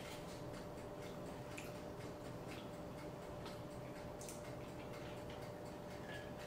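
Faint, soft clicks about every half second over a low steady hum.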